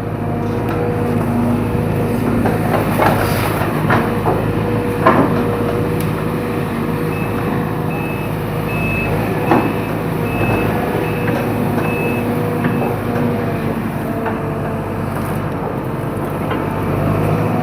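Excavator diesel engine running steadily under work, with a few sharp knocks and cracks. A travel alarm beeps at an even pace for several seconds in the middle.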